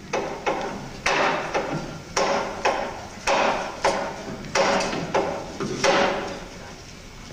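A steady series of sharp knocks, about two a second, each ringing briefly, stopping about six seconds in.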